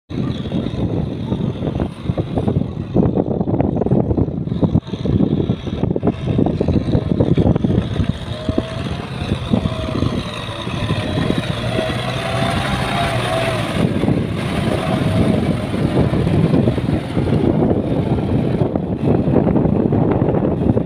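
Kubota farm tractor's diesel engine running steadily under load as it drags a rotary tiller through flooded paddy mud.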